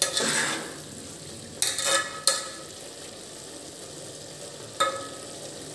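Steel spoon stirring cauliflower curry in an aluminium pot, scraping and knocking against the pot about five times with a brief metallic ring, three of the strokes close together in the middle. A faint steady hiss of the cooking curry lies between the strokes.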